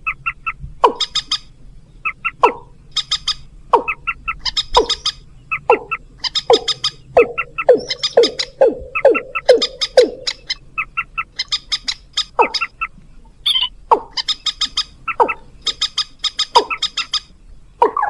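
Recorded lure calls of waterbirds, common moorhen and watercock: short downward-sliding calls repeated every half second or so, alternating with rapid, high, clicking chatters.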